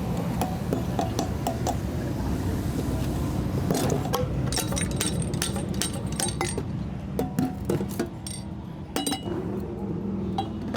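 Small metal parts and tools clinking and tapping against each other, a quick run of sharp clicks through the second half, over a steady low hum.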